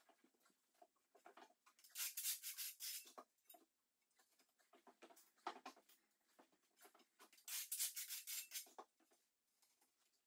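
Scraping and rubbing from floor tiling, as a trowel and tiles are worked over thinset mortar. There are two longer scraping bursts, about two seconds in and again around eight seconds, with light taps and clicks between.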